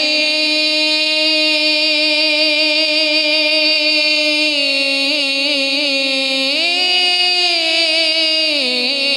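A man's voice singing a naat, drawing one word out into a single long held note. The note is level at first, wavers from about the middle, rises in pitch about two-thirds of the way through, and falls back near the end.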